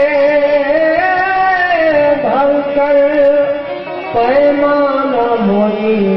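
Qawwali music: a man singing long held notes that slide between pitches, with a deep swooping dip about two seconds in, over a steady instrumental accompaniment.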